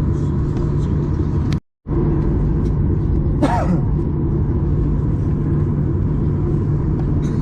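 Steady rumble and hum of a Boeing 737-800 passenger cabin, from the engines and airflow. The sound cuts out completely for a moment about a second and a half in, and a short falling-pitch sound is heard about halfway.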